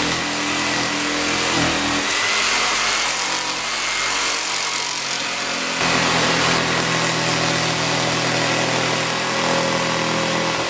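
Black & Decker jigsaw cutting through a laminate-topped table top, roughing out an opening. The saw runs continuously, its tone changing about two seconds in and again near six seconds.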